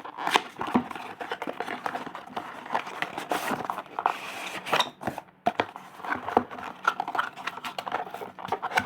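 A sealed product box being opened and unpacked: irregular crinkling and rustling of packaging, with scattered clicks, scrapes and tearing.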